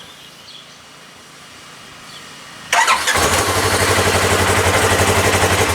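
Polaris RZR engine cranked and started about two and a half seconds in, catching almost at once and settling into a steady idle.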